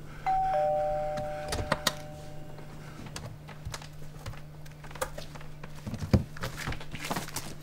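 Two-tone electronic shop door chime: two steady notes start a moment apart just after the door opens and hold together for about two seconds. Scattered knocks and clicks follow, over a steady low hum.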